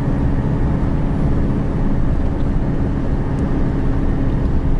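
Steady engine and road noise inside the cab of a GAZelle Next van driving along, a dense, even low rumble.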